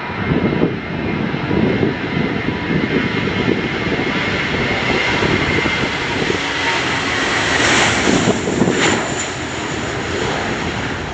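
Airliner's engines passing, a broad steady noise with a thin high whine that swells to its loudest about eight seconds in and then eases, with wind buffeting the microphone.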